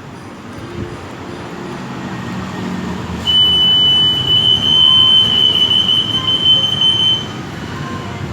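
C-301L RF 8.2 MHz EAS anti-theft gate alarm going off during a test: a steady high-pitched tone starts about three seconds in and holds for about four seconds before cutting off, over a low background rumble.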